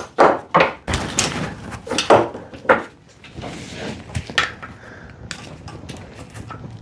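Metal hand tools clinking and knocking on a Mazda Miata engine while its timing belt tensioner bolt is loosened: a series of sharp metallic clicks, several in the first three seconds, then fewer and softer.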